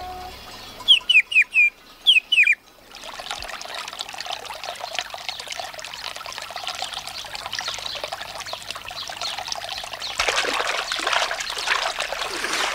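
A bird chirps in two quick runs of short falling chirps. Then comes a steady splashing of water pouring from a fountain spout, louder near the end.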